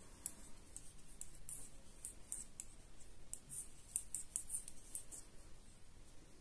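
Knitting needles clicking as stitches are worked: a string of light, irregular clicks, several a second.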